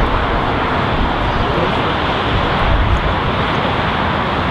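Boeing 777 jet engines passing close by, a loud, steady rush of engine noise.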